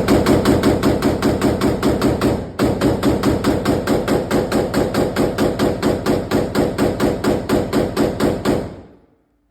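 A rapid string of gunshots, evenly spaced at about four a second, with a brief break about two and a half seconds in and stopping shortly before the end.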